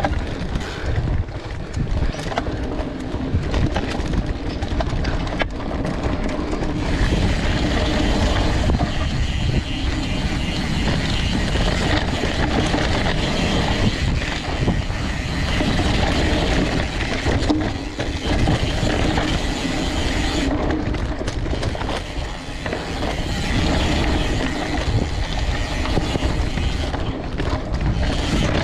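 Mountain bike ridden fast over a dirt singletrack trail: a continuous rumble of tyres on the ground with the chain and frame rattling and clicking over bumps.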